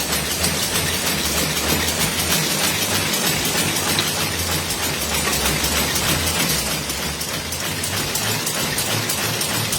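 HLP 200 round-corner cigarette packing machine running: a steady, dense mechanical clatter of rapid clicks over a low hum that swells and fades in regular pulses.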